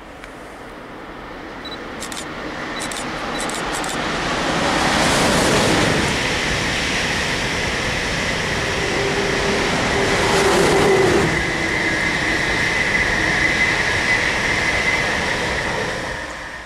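A long electric train passing at speed beneath the bridge. The rushing noise builds for about five seconds as it approaches, then stays steady while the coaches go by, with a thin high whine in the second half.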